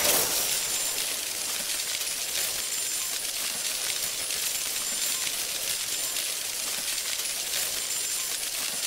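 Sound effect of a continuous shimmering shower of tiny tinkling clinks with a faint high ringing, a little louder at the very start, then steady.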